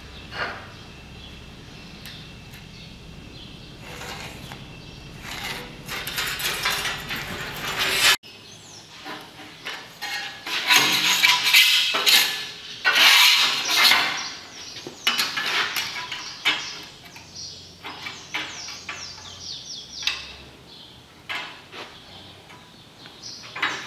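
Metal clatter and scraping as a thin sheet-steel strip is handled and set into a bench sheet-metal bending brake, quieter scraping at first, then a run of sharp clanking from about ten seconds in.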